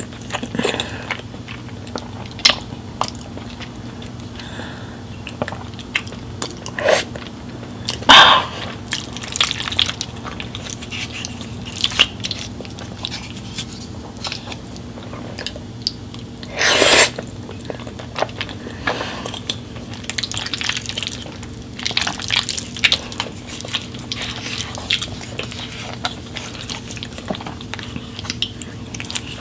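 A person biting and chewing crunchy food close to the microphone, in many short crunches and clicks. The two loudest bites come about eight and seventeen seconds in, over a steady low hum.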